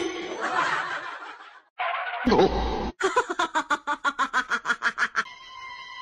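A person laughing in quick snickering bursts, about six a second, for a couple of seconds in the middle, between other clip sounds. Near the end a steady whine of several held tones takes over.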